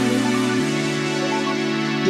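Electronic background music: sustained synth chords over a held bass note, which steps to a new note about half a second in.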